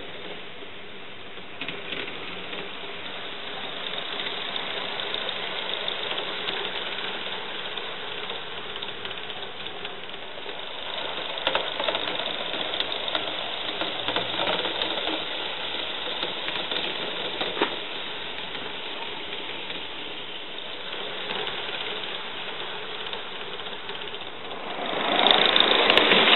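Accucraft Gauge 1 live-steam model locomotive running with its train: a steady chuff from the exhaust, with the wheels and cars clicking and rattling on the track. It gets much louder near the end as the locomotive passes close by.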